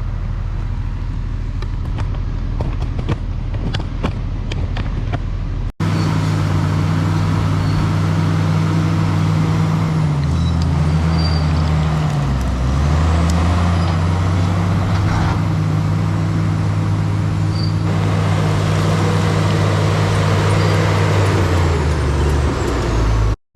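Diesel engine of heavy earthmoving equipment running under load. For the first few seconds it is a lower drone with light clanks; then a louder, closer engine runs with its pitch dipping and recovering as it lugs, and it drops again near the end.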